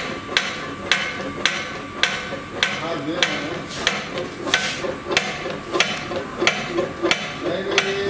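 Foot-pedal handwash stand worked over and over, its metal pedal and linkage clacking about twice a second with no sound of running water: the stand's drum is empty.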